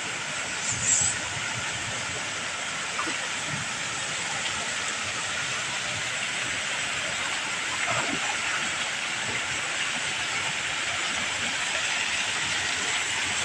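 Steady rush of falling water from a swimming-pool fountain, an even hiss that holds level throughout.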